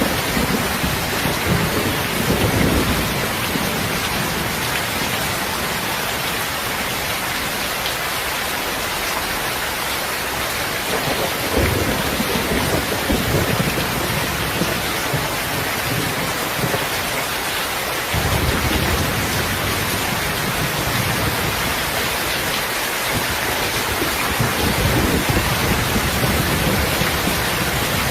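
Steady rain with low rumbles of thunder that swell near the start, about twelve seconds in, and again from about eighteen seconds on.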